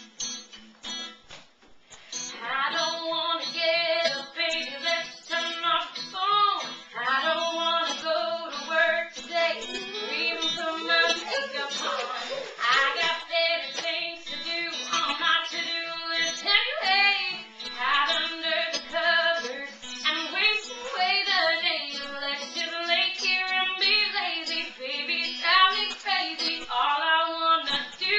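A girl singing a song, with long held notes, starting about two seconds in after a short pause.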